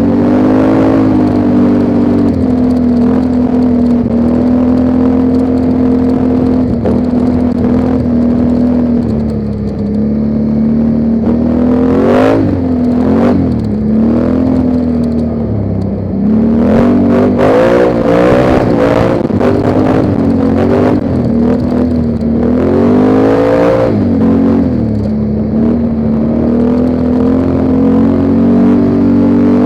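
ATV engine running under way, a steady note that rises and falls repeatedly with the throttle through the middle stretch before settling back to a steady pace.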